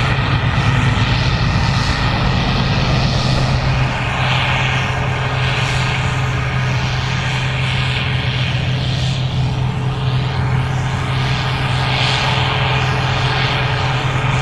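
Gleaner R65 combine harvester running steadily while harvesting corn: a constant low engine drone with a strong hum, and a hiss that swells and fades every second or two.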